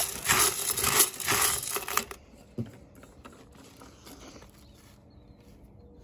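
Shelled corn kernels being stirred by hand in a metal coffee can, a dense rattling and clinking of kernels against the metal that stops about two seconds in; a single knock follows, then only quiet background.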